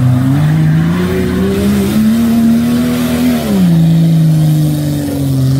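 Off-road SUV's engine revving hard under load. Its pitch climbs over the first two seconds, holds, drops sharply about three and a half seconds in, then rises again near the end.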